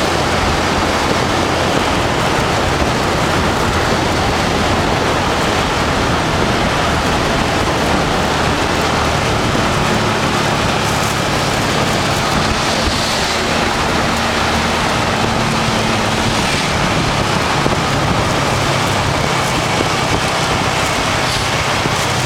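Motorbike riding along at steady speed: wind rushing over the microphone with the bike's engine humming underneath. A steadier, higher hum joins for several seconds past the middle.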